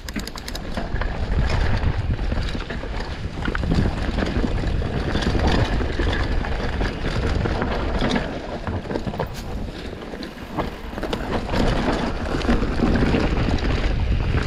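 Wind buffeting the microphone during a fast mountain bike descent on a dirt trail, with the tyres rolling over the ground and the bike rattling and clattering over roots and stones in many short knocks.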